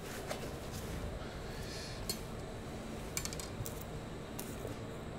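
A few faint clicks and clinks of a knife and kitchen utensils being handled on a counter, over a steady low room hum.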